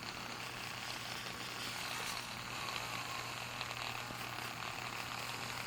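Small electric polishing tool running steadily with a sponge polishing wheel buffing a clear plastic part. It gives an even low hum under a hiss.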